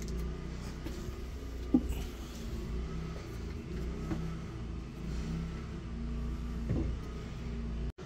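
Portable generator engine running steadily, heard as a low hum. Two short knocks come as the generator cord's twist-lock plug is handled and fitted into the transfer switch's power inlet.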